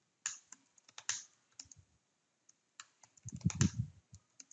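Keystrokes on a computer keyboard: irregular single taps, with a quicker run of keys about three and a half seconds in.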